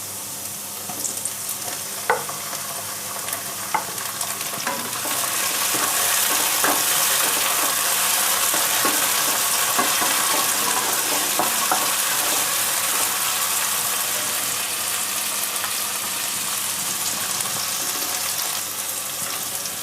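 Chopped tomato and onion sizzling in hot mustard oil in a kadai while being stirred, with a spatula knocking against the pan now and then. The sizzle grows louder about five seconds in.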